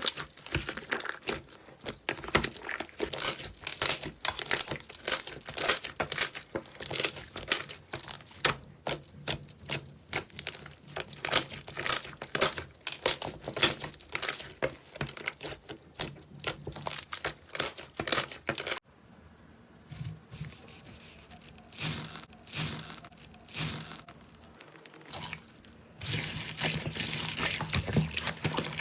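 Slime being pressed and worked, giving dense crackling and popping. About two-thirds of the way through, a cut brings quieter, sparser pops, and the crackling thickens again near the end.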